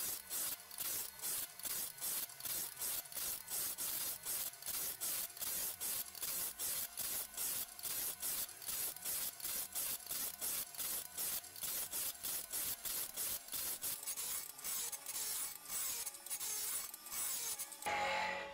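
Motor-driven abrasive wheel grinding down the steel bed way of a homemade lathe: a rasping rub that pulses evenly about three times a second and gets briefly louder near the end.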